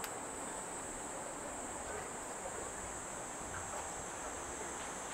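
Steady night-time outdoor ambience: a faint murmur of voices under a constant high-pitched hiss.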